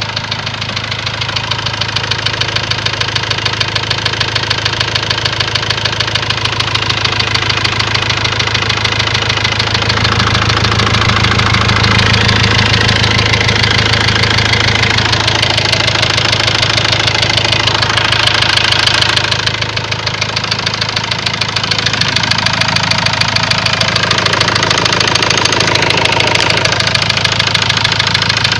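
Ford Transit diesel engine running steadily with a rapid, even knocking throughout. It gets a little louder for several seconds in the middle.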